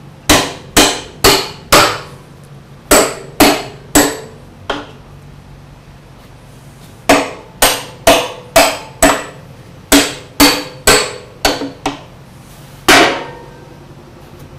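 Hand hammer striking the steel dogs and lugs of a ship's bulkhead door, knocking them tight to press the door onto its chalked coaming for a contact test. The strikes are sharp and ringing and come in quick runs: about four at two a second, then three, a pause of a few seconds, then about eight more, and a last blow near the end.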